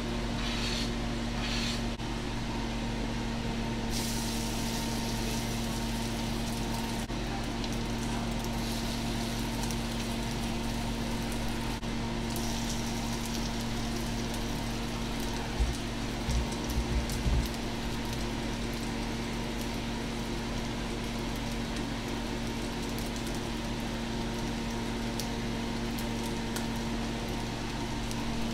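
A steady low electrical hum with an even hiss over it. A few soft low knocks come about halfway through.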